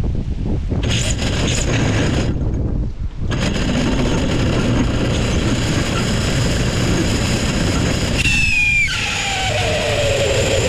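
Strong wind buffeting the microphone, a steady noisy rush that briefly drops out a couple of times. About eight seconds in, a whine falls in pitch over a second or two.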